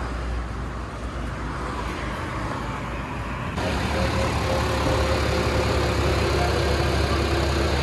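Massey Ferguson tractor's diesel engine running steadily at low revs. About three and a half seconds in it gives way suddenly to the louder, fuller sound of the tractor driving at road speed, with tyre and wind noise over the engine.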